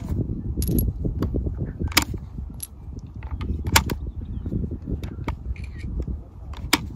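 Sharp metallic clicks as rifle cartridges are pressed one at a time into an AR-15 magazine, with brass clinking in between, over a low wind rumble on the microphone.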